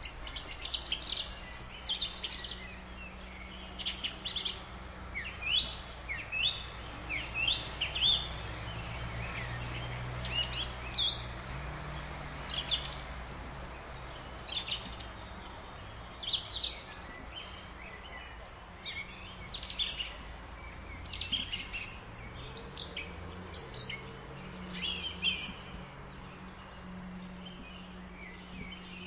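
A thrush singing: a run of short, varied, high-pitched phrases, one every second or so, over a steady low hum.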